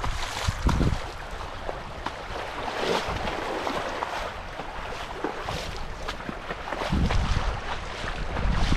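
Spring meltwater runoff running and splashing in a steady rushing hiss, with low rumbles about a second in and again near the end.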